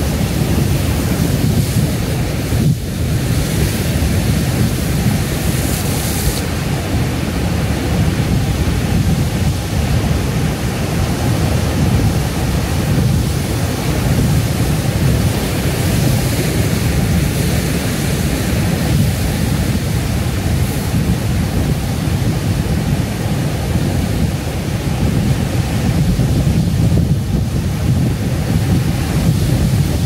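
Ocean surf breaking and washing around coastal rocks: a steady, unbroken rush of water.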